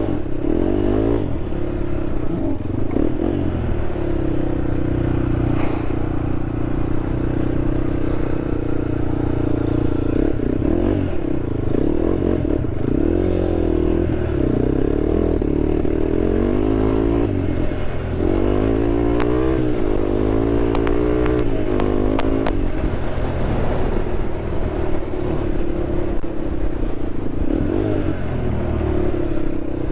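Honda TRX sport quad engine running while riding off-road, its pitch rising and falling again and again as the throttle is worked. A few sharp clicks come about twenty seconds in.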